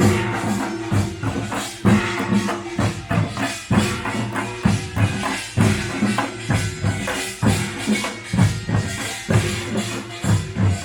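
Pungmul, Korean farmers' band percussion, played live: drums and clanging small gongs beating a fast, driving rhythm with a strong accent about once a second.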